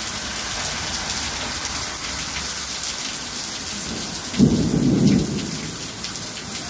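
Heavy rain pouring steadily, with a short, loud rumble of thunder about four and a half seconds in.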